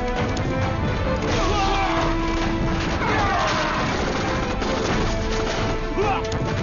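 Dramatic film score laid over a busy battle sound-effects track of crashes and impacts, with several falling whistles, the clearest about three seconds in.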